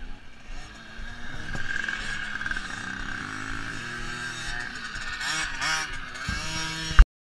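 Several pit bike engines revving up and down as the small motorcycles ride past on the dirt track. Near the end comes a single sharp knock, then the sound cuts off.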